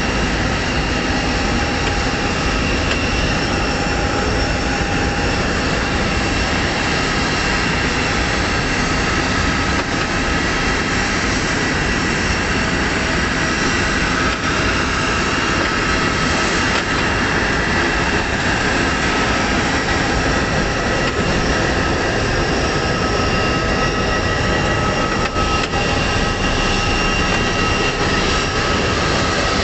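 Steady airport ramp noise: a continuous rumble and hiss with a steady high whine from jet aircraft parked on the stands.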